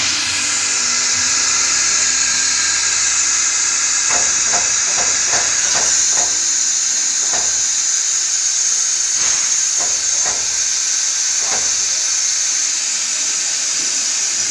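Compressed air hissing steadily and loudly at the forming machine's mould, with a quick run of light metallic knocks and clicks about four seconds in and a few single ones after.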